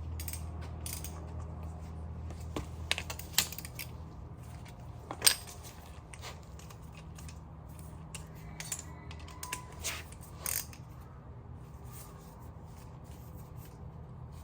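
Scattered sharp metallic clicks and clinks of hand tools and parts being handled during rear brake work, the loudest about five seconds in and several more between about nine and ten and a half seconds, over a steady low hum.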